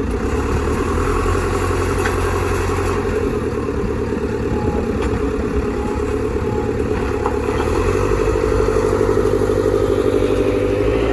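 The diesel engine of a 2007 JCB 3CX backhoe loader running steadily, getting a little louder about two-thirds of the way through.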